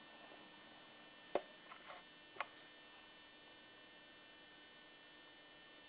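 Steady electrical hum with a few sharp clicks, the loudest about a second and a half in and another about a second later.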